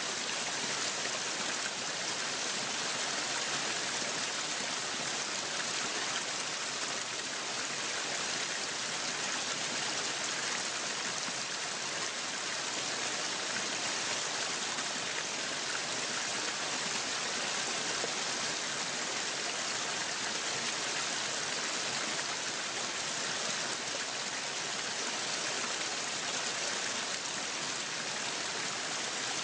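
Waterfall: water falling and splashing in a steady, even hiss.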